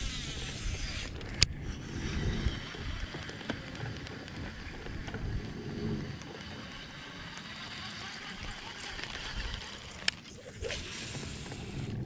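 Baitcasting reel being cranked through a buzz bait retrieve, a light mechanical whir, with a sharp click about a second and a half in and another near the end.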